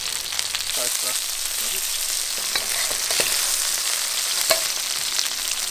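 Cornstarch-coated fish pieces sizzling as they shallow-fry in a little hot oil in a wok: a steady high hiss with scattered sharp pops of spattering oil.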